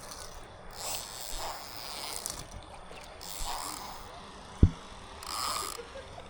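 Water splashing in several short bursts, with one sharp thump about two-thirds of the way through.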